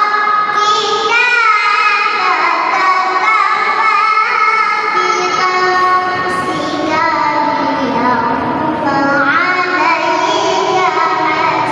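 A young girl's solo voice reciting the Qur'an in the melodic tilawah style, with long held notes and ornamented pitch turns.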